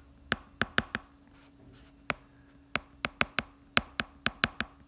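Pen tip tapping on a tablet surface while handwriting letters: about a dozen sharp, short taps in irregular clusters, bunched closer together in the second half. A faint steady low hum lies underneath.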